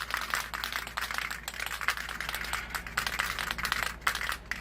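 Aerosol can of Krylon ColorMaster semi-gloss white paint being shaken, its mixing ball rattling in fast, dense clicks, with a few short pauses.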